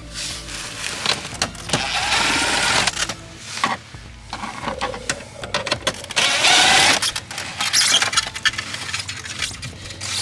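Clicks, rattles and scraping from a switch panel being worked off a Jeep's interior, with two longer stretches of scraping, one about two seconds in and one near six seconds.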